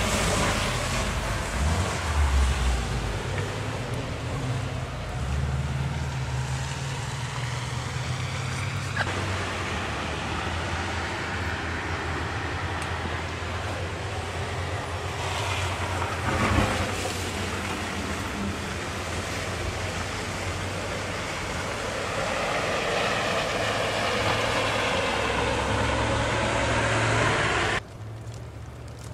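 Cars on a snow-covered, icy road: engines running and revving as they struggle for grip, with one sharp knock about halfway through. The sound drops abruptly to a quieter hiss near the end.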